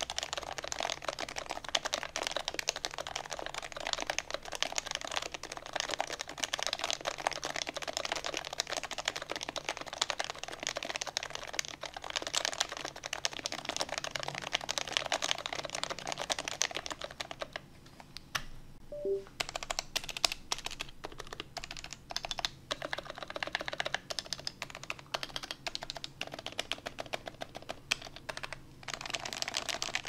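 Topre-switch keyboard in a TAYCAN by DN case with an aluminum plate being typed on fast and steadily, a dense run of keystrokes. Past the middle the typing stops for about two seconds, then goes on with short breaks.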